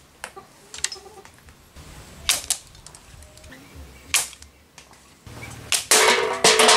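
Sharp snaps and clacks from a homemade wooden trigger-release slingshot being fired with stones, single reports a second or two apart, then a quicker run of clicks near the end.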